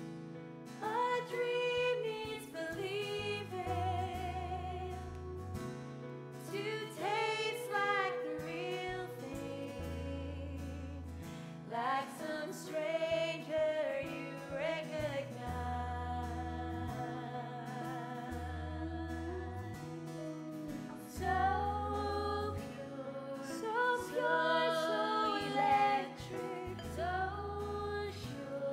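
Women singing a musical-theatre song together, with an instrumental accompaniment and a bass line underneath.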